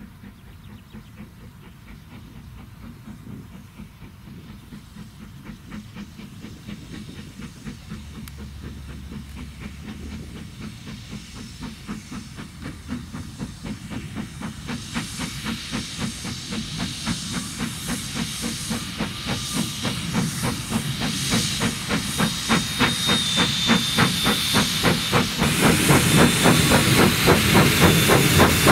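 Narrow-gauge steam locomotive working towards the listener: a quick, even rhythm of exhaust chuffs that grows steadily louder, with steam hissing that swells near the end.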